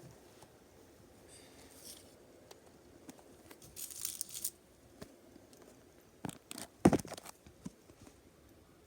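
Fidget spinners being handled: scattered light clicks and knocks, with a brief rustling scrape about four seconds in. A cluster of sharper clicks follows later, the loudest just before seven seconds.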